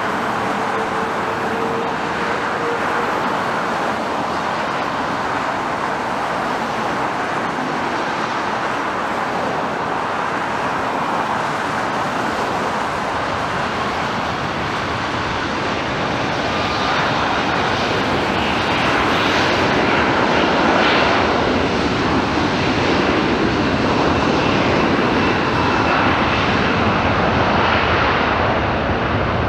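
Airbus A330-200 twin jet engines running as the airliner moves along the runway, a steady jet roar that grows louder past the middle.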